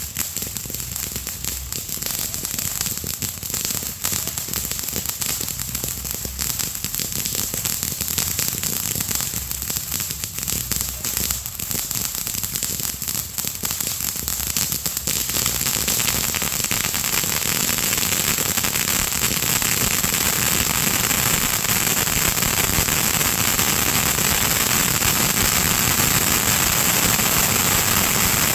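Consumer fireworks crackling: a fast, dense run of small pops that merges about halfway into a continuous, slightly louder crackling hiss.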